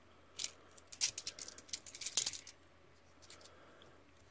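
Australian 20-cent coins clicking and clinking against one another as they are handled in the fingers: a quick run of sharp clicks in the first half, then a couple of lighter clicks.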